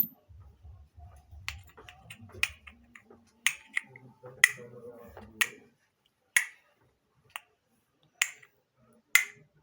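A series of sharp, dry clicks or pops made by hand, about one a second, for the sound she calls 'concha'.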